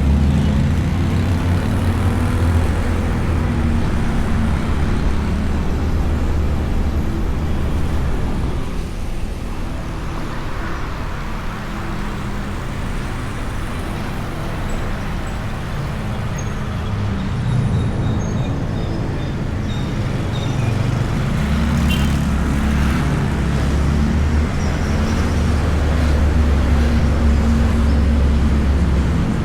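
Motorcycle engine running and road noise while riding in traffic, heard from a microphone inside the rider's helmet. A steady low engine hum is strong at first, eases off through the middle, and comes back strongly about two-thirds of the way through.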